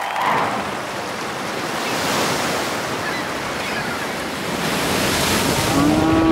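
Rushing ocean surf as a cartoon sound effect: a wave swelling and breaking, with two surges.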